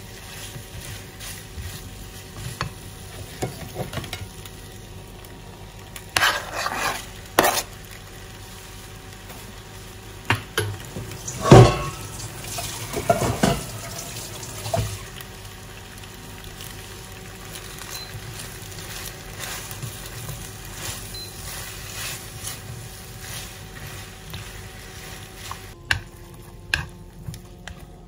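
Food frying in a pan: a steady sizzle with a faint hum underneath, broken by scattered knocks and clanks of a utensil against the pan and dishes, the loudest a little before halfway.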